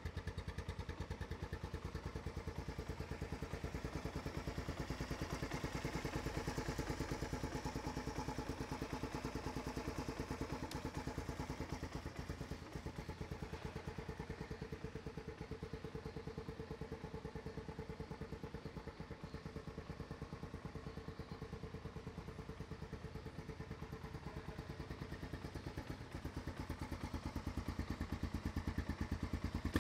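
Honda Recon 250 ATV's air-cooled single-cylinder engine idling steadily, with an even, quick putter of firing pulses.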